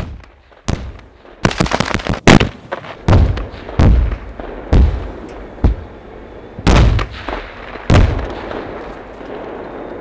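Film pyrotechnic blast charges going off in quick succession to stage shell hits: about nine sharp explosions roughly a second apart, the loudest about two seconds in, each dying away before the next, then stopping about eight seconds in.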